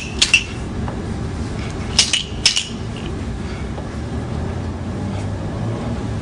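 Montessori sound cylinders being handled, giving a few short, sharp clicks and clinks: a pair right at the start, then two more about two and two and a half seconds in.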